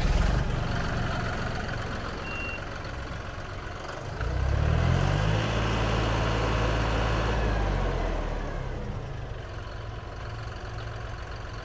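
John Deere 5065E tractor's 65 hp Tier 4 diesel engine running. It revs up about four seconds in, holds the higher speed for a few seconds, then settles back toward idle.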